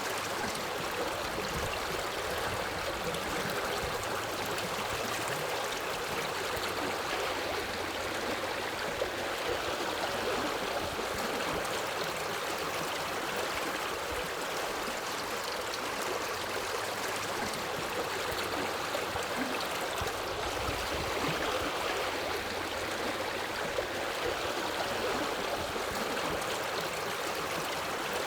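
Forest river flowing over rocks: a steady rushing and gurgling of running water.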